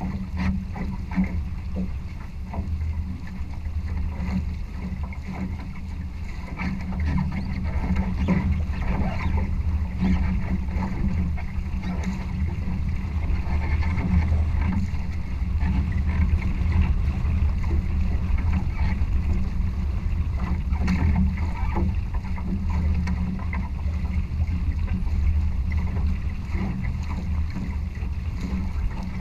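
Steady low rumble of wind and rushing water on a camera mounted on a Challenger sailing trimaran sailing close-hauled, with scattered small knocks of water against the hull.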